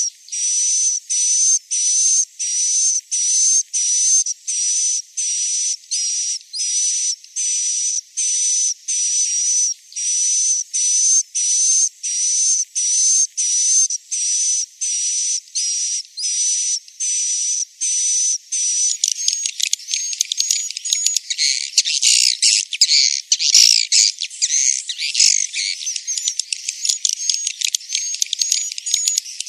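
Recorded edible-nest swiftlet roosting-call lure: a buzzy, high chirp repeated about twice a second. About two-thirds of the way through it turns into a dense chatter of many overlapping twitters and clicks.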